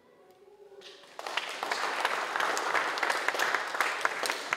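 Audience applauding, a dense patter of many hands clapping that starts about a second in and carries on loudly.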